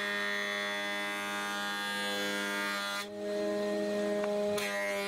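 Record Power PT260 planer-thicknesser working as a jointer: its cutter block is planing a face of a rough, warped ash blank pushed across the tables, over the steady whine of the motor. The cut stops about three seconds in, and a shorter burst of cutting comes near the end.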